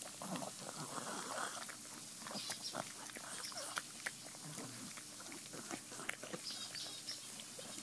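Pug chewing a treat with its mouth open: faint wet smacking and scattered small clicks.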